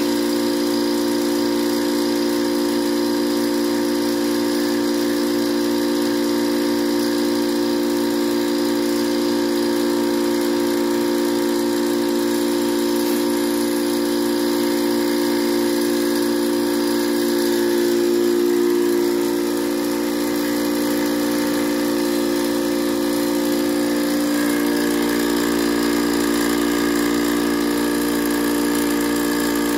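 Portable high-pressure air compressor running steadily with an even hum, compressing biogas drawn from an inner tube into a propane tank. Its note shifts slightly about two-thirds of the way through.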